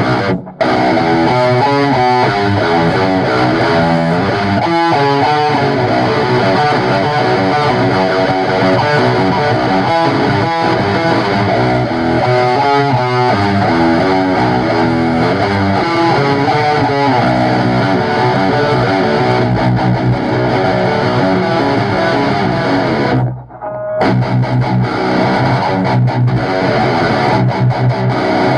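Distorted electric guitar playing a riff-based rock song. The playing stops for a moment about half a second in and again for about half a second near the end, then carries on.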